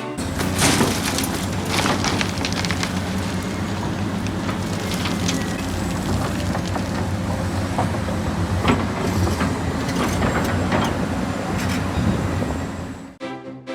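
Radio-controlled model construction machines and trucks working: a steady low drone with many small clicks and knocks. It cuts off about 13 seconds in.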